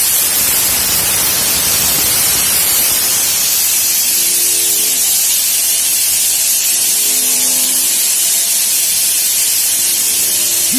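5-axis CNC milling machine at work, giving a loud, steady hiss with faint machine tones that come and go a few times.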